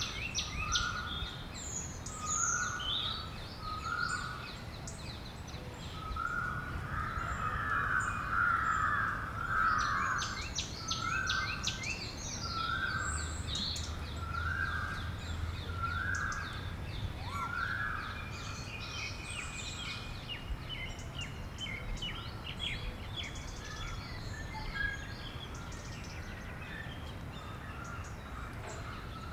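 Several birds calling and chirping together, with one short call repeating about once a second for the first half or more. A steady low rumble runs underneath.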